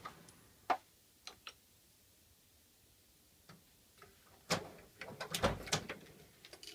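Scattered clicks and light knocks from small objects being handled on a workbench: a few sharp clicks in the first second and a half, a quiet gap, then a quick cluster of clicks and taps a little after the middle.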